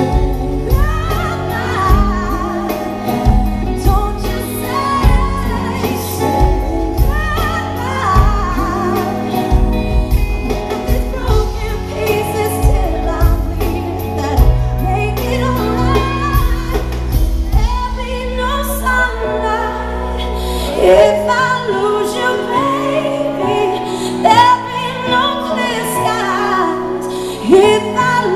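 Live concert recording of a woman singing a pop ballad with her band. The heavy bass and drums drop away about halfway through, leaving lighter accompaniment under the voice.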